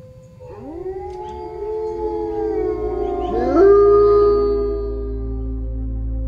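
A chorus of wolves howling: several voices slide up one after another and hold long, overlapping notes, loudest just before four seconds in. Soft ambient music swells in underneath toward the end.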